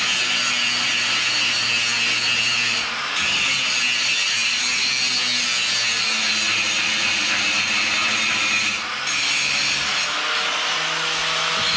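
Electric angle grinder grinding weld spatter off freshly welded steel hinges: a steady rough, hissing grind, with the disc easing off the metal briefly about three seconds in and again about nine seconds in.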